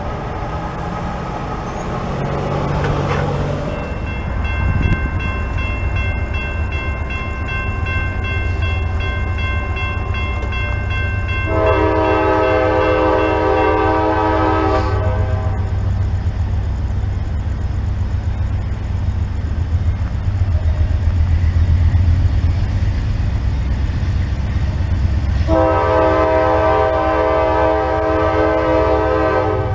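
Diesel freight locomotive approaching with a steady low engine rumble, sounding its air horn in two long blasts, one about twelve seconds in and one near the end, the crossing warning for a grade crossing. A crossing bell rings thinly in the first half.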